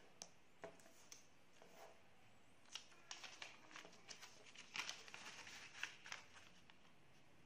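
Faint rustling and crisp crackles of a square sheet of origami paper being handled and folded along its diagonals, busiest about halfway through.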